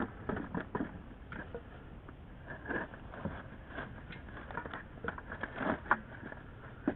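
Irregular light clicks, taps and scrapes of pipe fittings being handled and pushed together on the pressure tank's plumbing.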